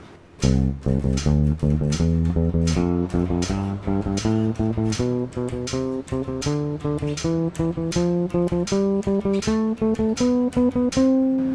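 Unaccompanied electric bass, a Precision-style bass, playing the C major scale in a repeated eighth-note-and-two-sixteenths rhythm. The notes climb steadily up the scale and end on a held note near the end.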